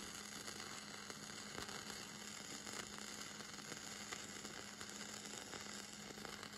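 Faint crackling hiss of a gasless flux-core wire-welding arc from a Hobart Handler 140, laid down in tight circles on thin square steel tubing. A steady low hum runs underneath.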